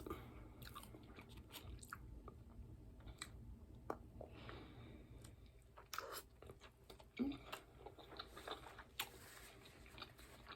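Faint close-up sounds of someone chewing and biting into tacos: scattered small clicks and wet mouth noises, with a couple of slightly louder bites near the end.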